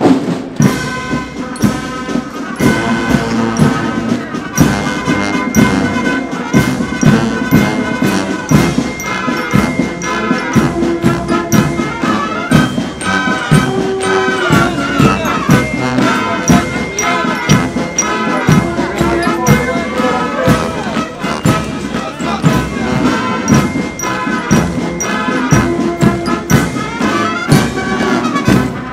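Military brass band playing a march, with drums keeping a steady beat of about two strikes a second.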